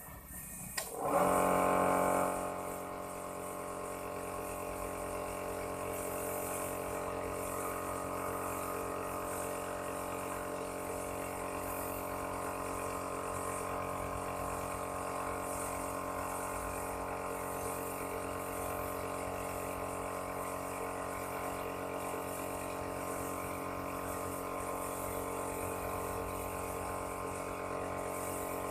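Small electric motor starting about a second in with a brief louder surge, then running steadily at an even pitch.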